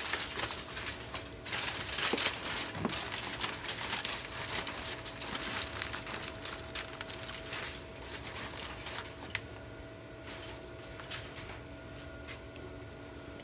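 Grease fire crackling and sizzling inside a Weber SmokeFire pellet grill, grease that built up because no drip trays were fitted. The crackle is dense at first and thins out about nine seconds in, over a faint steady hum.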